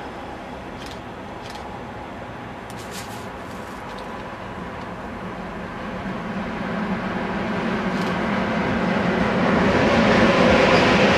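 Freight train of loaded double-deck car-carrier wagons hauled by an electric locomotive, approaching and passing. The rumble and wheel noise grow steadily louder through the second half.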